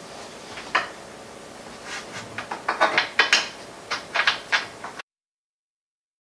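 Irregular light clicks and knocks of crib hardware and wooden parts being handled as the screws that join the crib's back rail to its side rails are fitted. The sound cuts off abruptly about five seconds in.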